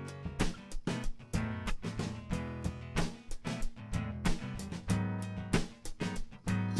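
Live band music without singing: guitar chords strummed over a steady beat of drums and percussion.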